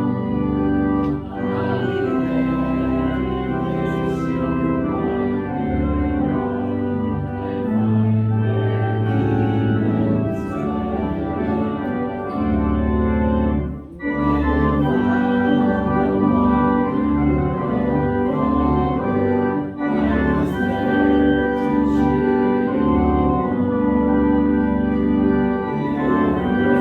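Organ playing a hymn in full sustained chords that change every second or so, with a short break about fourteen seconds in.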